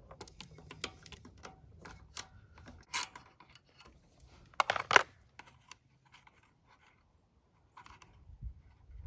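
Hands working on a portable generator's plastic air filter housing and hoses: scattered light clicks and knocks, with a louder clatter of several knocks about five seconds in.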